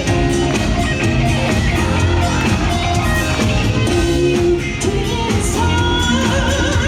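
Live band music: a pop-rock song playing loud and steady.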